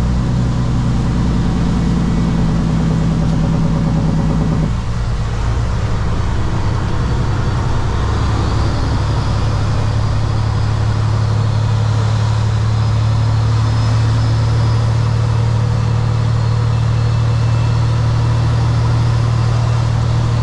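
Kenworth W900 semi-truck's diesel engine running steadily at low road speed, heard inside the cab. A higher part of the engine note drops away suddenly about five seconds in, leaving a steady low drone.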